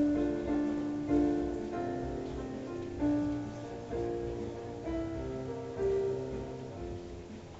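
Keyboard playing an instrumental piano passage, notes and chords struck every second or so and left to die away.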